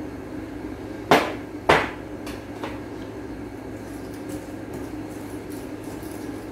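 Two sharp knocks of kitchenware on glass, about half a second apart: the measuring cup and sugar canister knocking against the glass bowl and glass tabletop. They are followed by a few light clinks of a fork stirring sugar into beaten eggs in a glass bowl.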